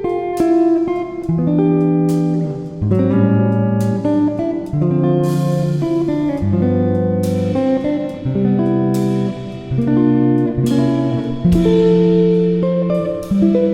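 Background music led by a plucked guitar, playing a steady run of notes over chords.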